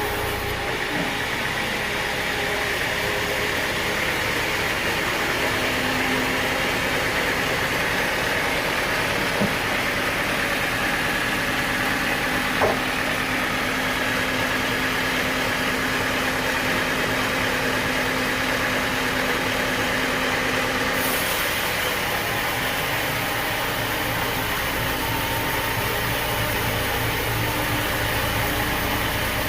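Sawmill machinery running steadily with a constant mechanical drone. About two-thirds of the way through, a held tone drops out and a hiss and low rumble come up. Two small knocks are heard early on.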